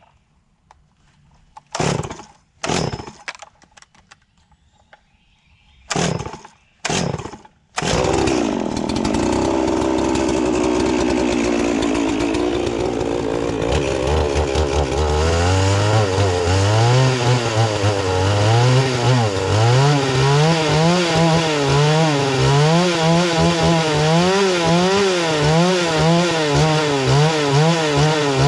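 Two-stroke gas chainsaw being pull-started: four short pulls of the starter cord, catching on about the fourth pull some eight seconds in. It then runs at a steady speed, and from about halfway on its engine speed rises and falls about once a second.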